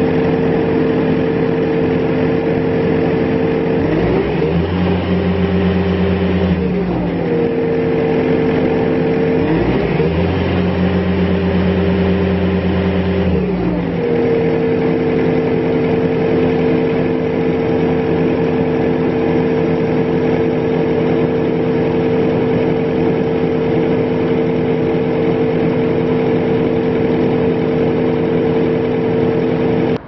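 Bobcat S590 skid steer's four-cylinder diesel engine running steadily. The engine speed changes twice for about three seconds each time, then settles back to its steady note.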